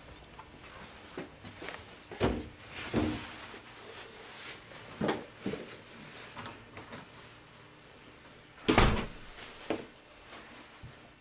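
Several knocks and thumps of doors and cupboard doors being opened and closed, the loudest about nine seconds in.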